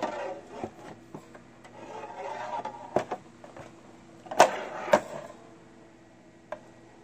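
The plastic head of a swing-arm magnifying lamp being handled and turned over on a workbench: scraping and rubbing with several sharp knocks, the loudest two about half a second apart midway through. A faint steady low hum runs underneath.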